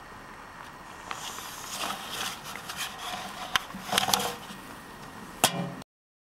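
A paper envelope rustling and scraping as it is pushed into a roadside mailbox, with a few clicks along the way, then one sharp clack near the end before the sound cuts off abruptly.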